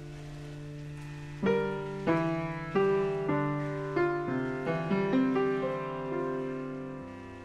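Slow, gentle piano music: a held chord, then single struck notes picking out a melody from about a second and a half in, each note ringing out, before it settles back into a sustained chord near the end.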